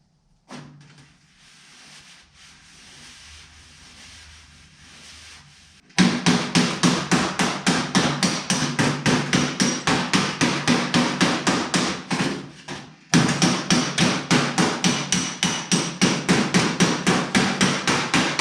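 Hammer tapping out a dent in the steel door skin of a 1936 Ford roadster, a fast, even run of strikes about four to five a second. It starts about six seconds in, after a faint stretch, and pauses briefly near the two-thirds mark before carrying on.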